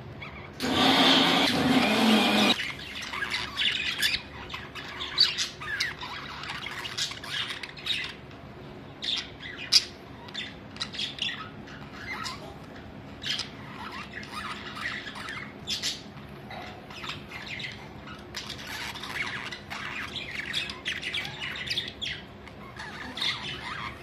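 A flock of caged budgerigars chattering, with many short, sharp chirps and squawks. A loud, harsh burst lasting about two seconds comes about half a second in.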